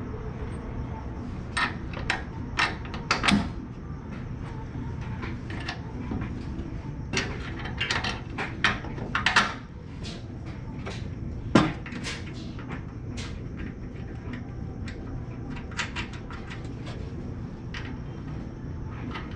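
Irregular metal clinks and knocks of bolts and hand tools being handled, the loudest about halfway through, over a steady low hum.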